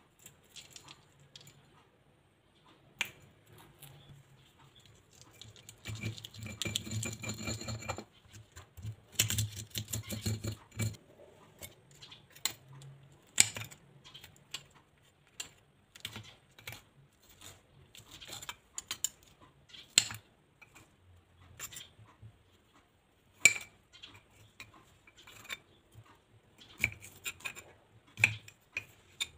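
Kitchen knife slicing red chilies and kencur inside a stone cobek, the blade clicking and tapping against the stone. The taps are scattered, with two stretches of fast, close strokes a few seconds in.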